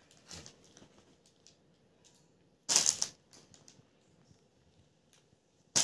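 A plastic bag and balloon packets crinkling in short bursts as they are handled. The loudest burst, about half a second long, comes just before the middle, with a smaller one near the start and another near the end.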